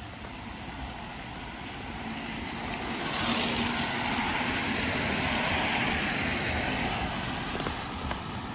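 Steady rain, with a passing vehicle's hiss swelling from about two seconds in, loudest midway, then fading away.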